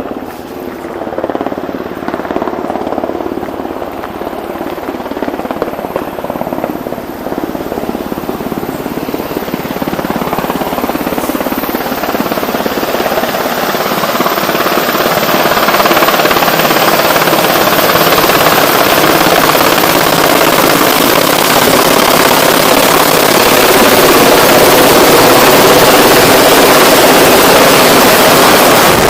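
Helicopter growing louder as it comes close, its steady rotor hum giving way about halfway through to a loud rushing of rotor downwash blasting the microphone.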